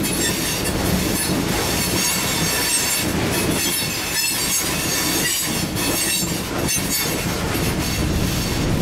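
Freight train's tank cars, then container cars, rolling past at speed. The steel wheels give a steady roar with irregular clicks over rail joints and high-pitched squealing.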